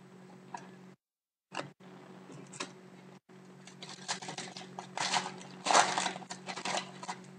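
Foil trading-card pack being torn open and crinkled by hand: a crackling rustle that builds about four seconds in and is loudest near the end, after a few scattered clicks.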